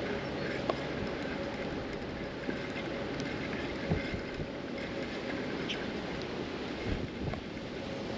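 Wind buffeting an action-camera microphone on a kayak on a river: a steady rumbling wind noise, with a few faint light knocks.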